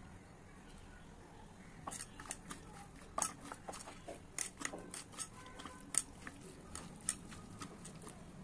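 A bare hand mixing chopped raw taro stolons, fish pieces, sliced onion and wet spice paste in a non-stick pan: irregular wet squelching and crunchy clicks, starting about two seconds in.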